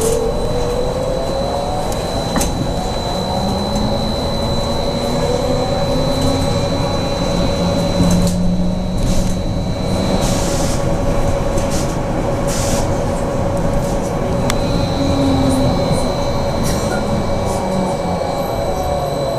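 BKM 43300D trolleybus's electric traction drive running, heard from inside the passenger cabin. Its whine rises in pitch as the trolleybus pulls away, holds steady while it cruises, and falls again near the end as it slows, over steady road and body noise.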